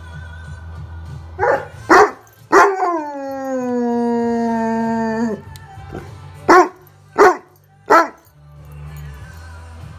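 Newfoundland dog barking twice, then one long howl that falls in pitch and then holds for about three seconds, then three more single barks. Pop music plays quietly underneath.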